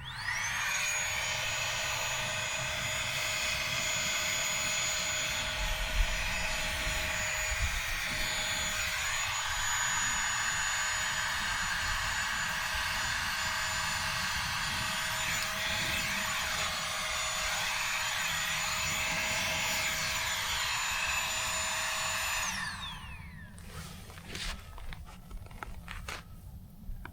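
A small electric motor-driven fan or blower spins up fast, runs at a steady high whine for about 22 seconds, then winds down.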